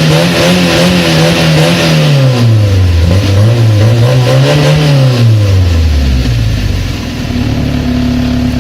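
Yugo Koral 55's stock-exhaust inline-four engine being revved: the note rises and falls through several blips of the throttle, then drops back about six seconds in and settles to a steady idle.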